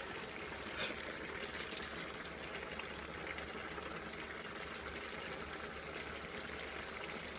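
Pot of chicken and vegetable curry simmering, a steady low bubbling, with a few faint clicks in the first few seconds.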